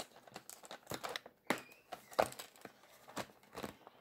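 Cardboard advent-calendar door being pried open and a card pack worked out of it: irregular crinkling, scraping and small snaps of card and wrapper. The door is stiff and the pack hard to get out.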